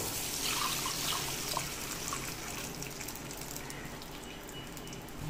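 Water poured from a glass jug into a wok of pineapple cooked in ghee, splashing in. The pour is loudest in the first two seconds and then softens.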